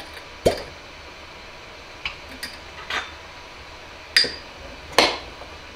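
A metal spoon clinking against a glass jar: a dull knock about half a second in, a few light taps, then two louder ringing clinks near the end.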